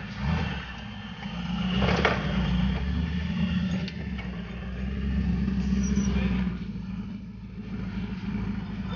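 Engine of a modified off-road 4x4 running and revving as it drives away over loose ground, with a sharp knock about two seconds in.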